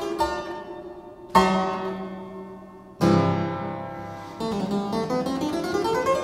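Joris Potvlieghe clavichord (2020) playing solo: a chord fading away, then two chords struck about a second and a half apart, each left to die away, followed by a quick rising run of notes.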